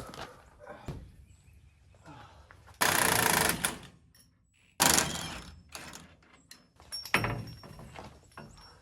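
Shop teardown noises from tools and metal truck parts: a loud burst of rattling machine noise a little under a second long about three seconds in, then a sharp metallic hit about five seconds in that fades out, and another knock about seven seconds in.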